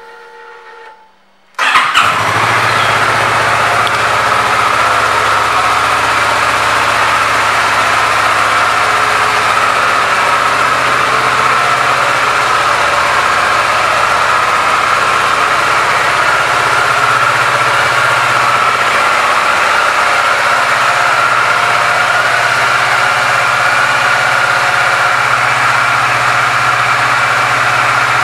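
2016 Kawasaki Ninja 650's parallel-twin engine starting about two seconds in, then idling steadily.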